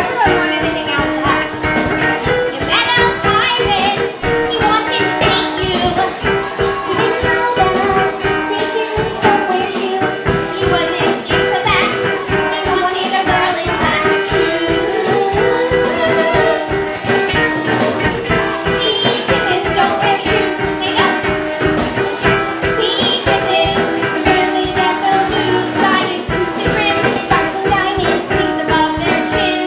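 Small live band: two ukuleles strummed along with a drum kit, and female voices singing.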